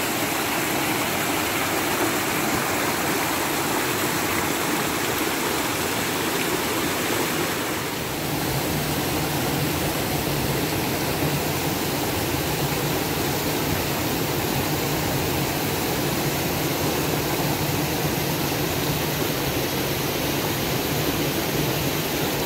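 Rushing water of a cascading mountain stream, a steady loud rush that dips briefly and shifts a little in tone about eight seconds in.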